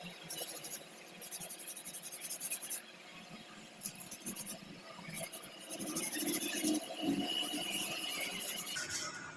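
Repeated scraping or rubbing strokes in uneven bursts, with a thin high squeal held for about two seconds near the end.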